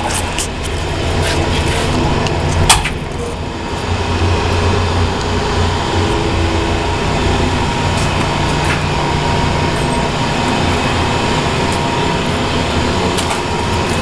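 Steady low machinery hum with a faint steady high tone, and a few scattered knocks and clicks; the loudest is a sharp click about three seconds in.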